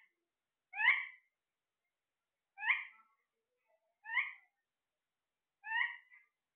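A parrot giving four short calls, evenly spaced about a second and a half apart.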